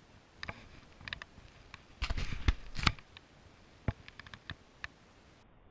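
Rustling and crackling in dry leaf litter: scattered irregular crackles, with a denser, louder stretch between about two and three seconds in.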